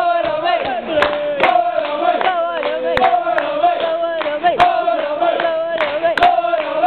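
A football crowd singing a chant together in unison, with sharp claps cutting through it every second or so.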